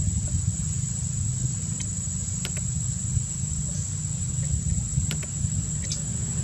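Steady low outdoor rumble, with a constant high insect whine over it and a few faint clicks.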